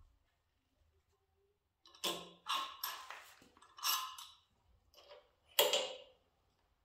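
Small metal motorcycle bar-end parts clinking and rattling together as they are handled, in a quick cluster starting about two seconds in and once more, loudest, near the end.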